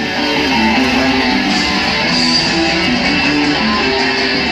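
Background music led by guitar, a steady run of held notes.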